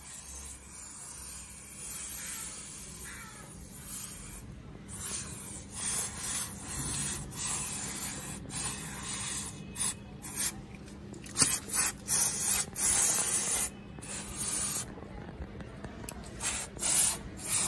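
Aerosol chain cleaner hissing from its spray can onto a motorcycle drive chain in repeated short bursts.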